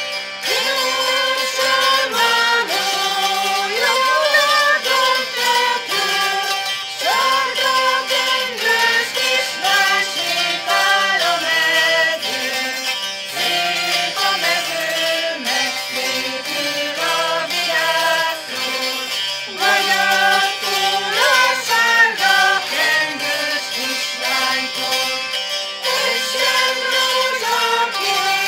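Folk music: a song with singing over instrumental accompaniment, playing steadily.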